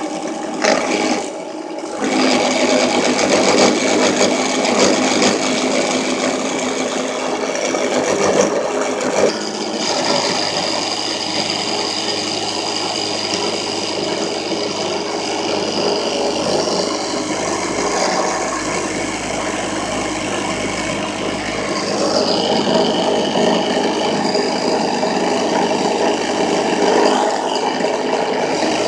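Drill press running with an end mill cutting into plastic cutting-board material: a steady motor whir over the rough, rattling noise of the cut. The cutting noise grows louder about two seconds in, eases in the middle and rises again about seven seconds before the end.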